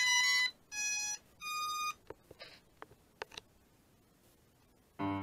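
Holy Stone HS700E drone powering up: three electronic start-up beeps, each a different pitch, in quick succession, followed by a few faint ticks. Piano music starts near the end.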